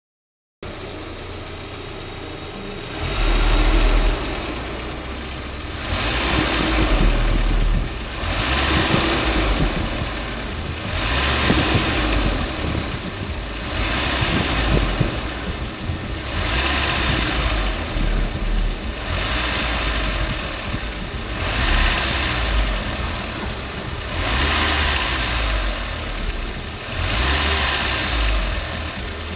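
Audi A4 B5 turbo engine idling and blipped about every two and a half seconds, each rev rising and falling back. An odd noise goes with it, which the owner thinks comes from the turbo but is not sure.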